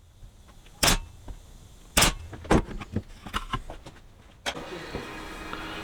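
A series of sharp knocks and clicks, a handful over about four seconds, then a steady background hum that starts about four and a half seconds in.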